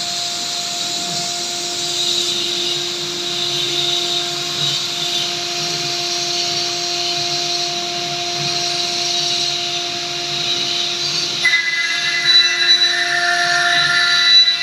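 CNC stone-carving router running, its spindle giving a steady whine over the hiss of the bit grinding stone. About eleven and a half seconds in, a higher-pitched whine joins.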